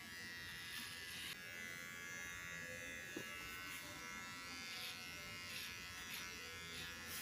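Electric hair clipper running with a faint, steady buzz as it trims a boy's short hair; its tone shifts slightly a little over a second in.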